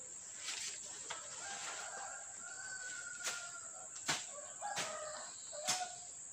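A rooster crowing: one long call of about two seconds, then a few shorter calls, with several sharp crackles and a steady high hiss underneath.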